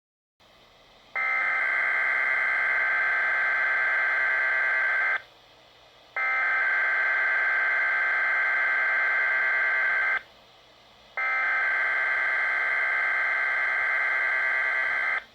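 Weatheradio Canada SAME alert header: three identical bursts of warbling two-tone digital data, each about four seconds long with a one-second pause between them. This is the coded header that opens an emergency alert broadcast.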